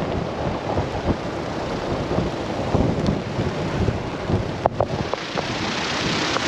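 Storm wind gusting near 40 knots with rain, buffeting the microphone in a steady rumbling rush, with a few brief knocks.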